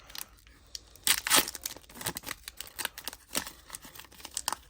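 Foil wrapper of a Pokémon booster pack crinkling and tearing, with the loudest rip about a second in, then scattered crinkles.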